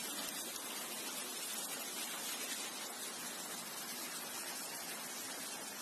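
Steady rain falling on a hail-covered street: an even hiss without distinct hailstone impacts.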